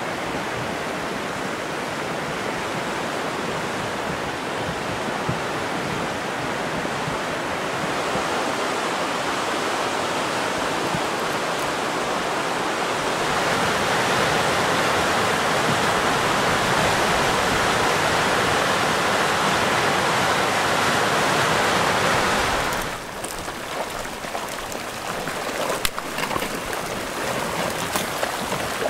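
Muddy flash-flood water rushing down a sandy desert wash, a steady rushing that grows louder about halfway through. About three quarters of the way in it drops sharply, and scattered cracks and clicks from the brush and branches carried in the debris-laden flood front follow.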